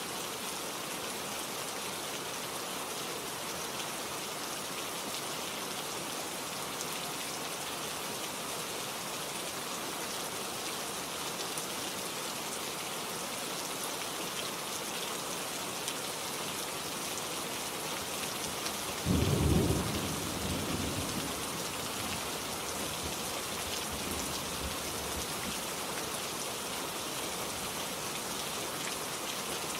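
Steady rain falling, with a single sharp clap of thunder about two-thirds of the way in that rumbles away over a few seconds.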